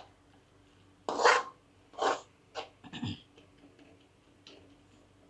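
Flat spatula scraping and stirring a thick onion-tomato masala in a metal kadai: four or five short scrapes in the first three seconds or so, then only faint clicks. The stirring keeps the masala from sticking to the pan.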